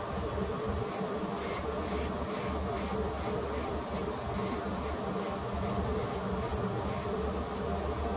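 Corded electric hair clippers buzzing steadily as they are run over the head, with a run of short scratchy strokes, about two a second, during the first few seconds.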